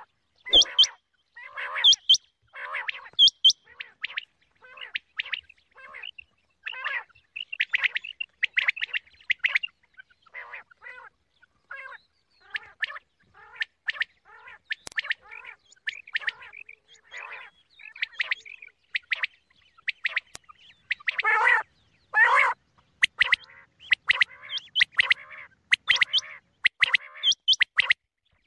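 Quail (batair) calling: a quick run of short, repeated calls, about one to two a second, with a louder pair of calls about three-quarters of the way through. It is the female quail call used by hunters as a lure.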